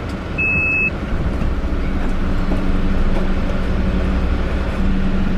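Car running, heard from inside the cabin: a steady low rumble of engine and road noise, with a short high beep about half a second in.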